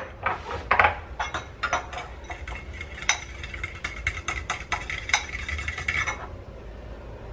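A spoon clinking and scraping against a bowl in quick, irregular taps while crushed garlic is stirred into butter. The taps stop about six seconds in.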